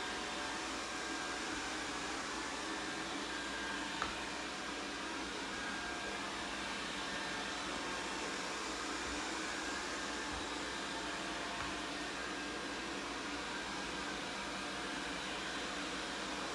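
ZOOZEE robot vacuum cleaner running with a steady hiss and hum, with one short click about four seconds in.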